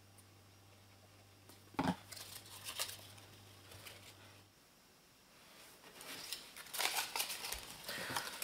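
Folded origami paper modules being handled and pressed together with glue: light paper rustling and crinkling, with a sharp click about two seconds in. The rustling grows busier near the end as the joined modules are fanned open.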